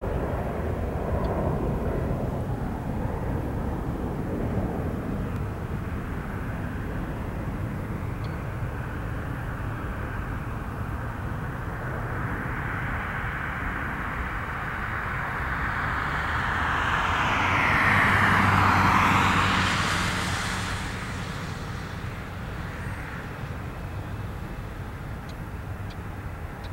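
Airbus A320 jet engines running at a distance as the airliner taxis and lines up on the runway, a steady jet noise. About two-thirds of the way through, a louder swell rises and falls away as something passes close by.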